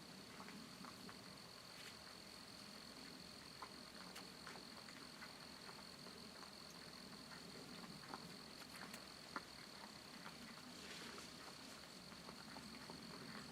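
Near silence, with a faint steady high-pitched whine and a scattering of small ticks and clicks.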